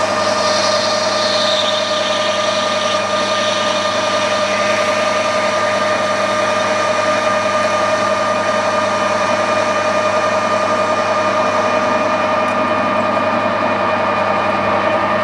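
Metal lathe running under power with a steady whine while a carbide insert takes a facing cut across the end of a spinning round bar, curling chips off.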